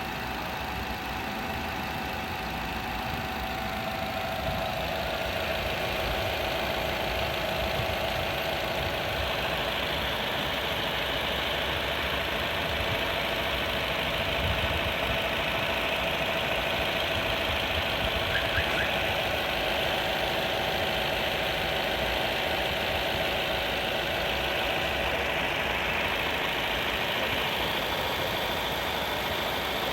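Corsa D's 1.4 A14XER four-cylinder petrol engine idling steadily after a cold morning start, with a faint constant rattling tick under the engine note. The owner suspects the timing chain.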